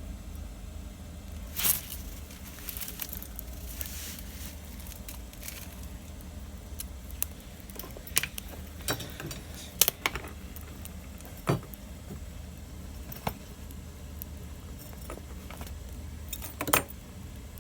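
Wood fire crackling, with irregular sharp pops and snaps over a low steady rumble.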